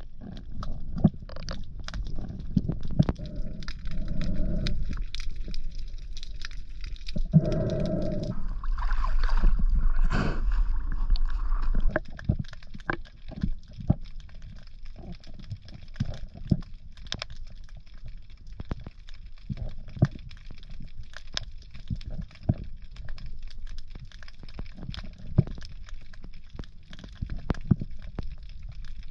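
Underwater ambience heard through a submerged camera: a low water rumble with many scattered sharp clicks and crackles. Between about seven and twelve seconds in, a louder gurgling rush sits on top, then it settles back to the quieter clicking.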